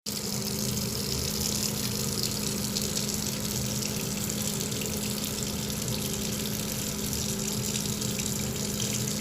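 Steady rushing noise of running water, with a low, steady hum underneath.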